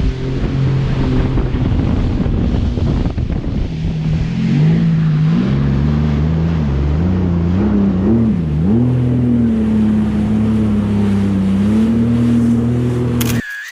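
Jet ski engine running under way, its pitch climbing and wavering with the throttle before holding steady, with wind buffeting the microphone. The sound cuts off suddenly near the end.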